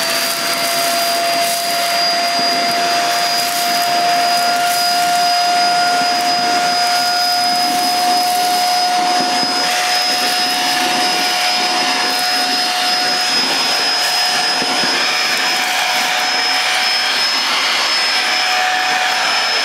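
Bissell Featherweight Pro 2-in-1 vacuum, used as a hand vacuum, running steadily with a high motor whine while sucking up rolled oats and rice from a tile floor. The motor's tone is pitched a bit high, which the owner puts down to flour clogging the filter.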